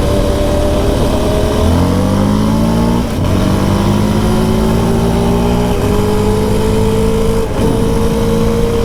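Yamaha YFM700R Raptor quad's single-cylinder engine pulling through the gears under acceleration, its pitch stepping at the shifts and then rising steadily. Mixed in is the hum of knobby off-road tyres on asphalt.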